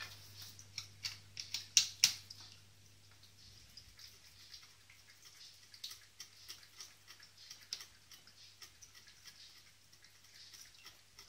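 Cat lapping water from a pet drinking fountain: a long run of small irregular wet clicks and light splashes, loudest about two seconds in, over a faint low hum.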